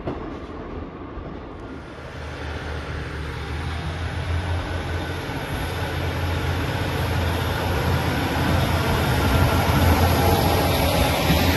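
ScotRail Class 156 diesel multiple unit passing close along the platform. The drone of its underfloor diesel engines and its wheel and rail noise grow steadily louder as it draws level.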